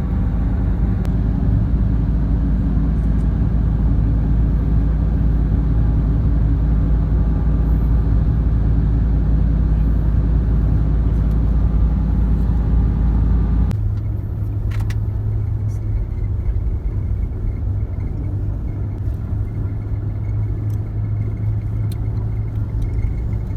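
Steady engine and road rumble of a road vehicle heard from inside, changing abruptly about 14 seconds in to a quieter steady hum with a faint thin high whine.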